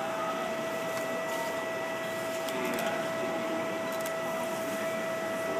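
Steady machine hum with a constant whine that holds one pitch throughout.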